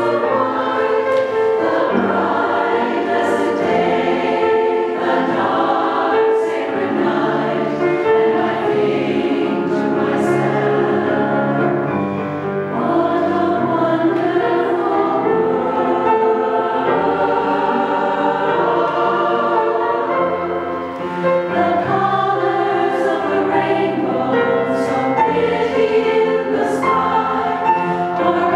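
Women's chorus singing a three-part treble (SSA) arrangement of a slow ballad, many voices holding sustained harmonies, with piano accompaniment.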